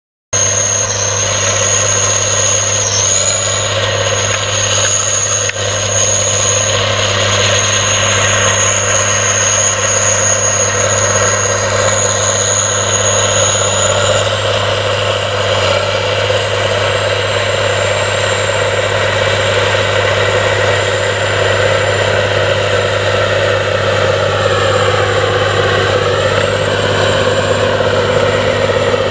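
Challenger MT865C tracked tractor's 18-litre six-cylinder Cat diesel running steadily under load while pulling a reversible plough, with a thin high whine over it. Near the end the pitch dips briefly and comes back up.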